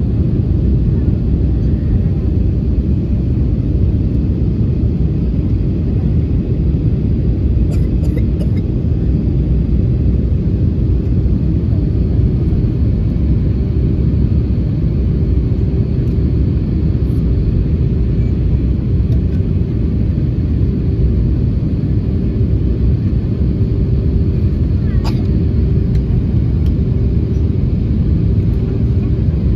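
Steady cabin noise inside an Airbus A320neo airliner descending on approach: an even, loud rumble of engines and airflow with a steady hum running through it. A couple of faint clicks come through, one about eight seconds in and one near the end.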